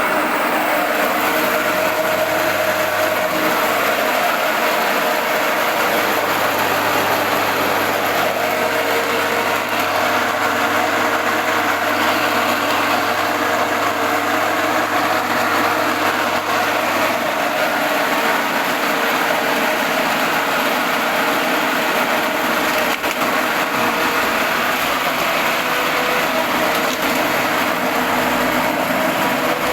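Two-roller stainless-steel skin-separating grinding machine running steadily, a continuous mechanical drone with a steady hum. A lower hum underneath drops away a little over halfway through.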